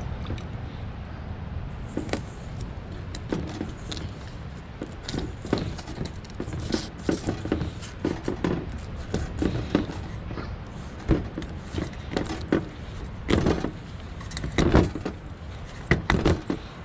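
Bread dough being stretched and folded by hand in a stainless steel bowl: irregular soft slaps and knocks as the dough and bowl are handled on the table, over a steady low background rumble.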